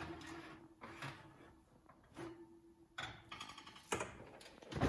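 Light metallic clinks and knocks as muffin tins are set down on a wire oven rack, with a short rattle of the rack about three seconds in.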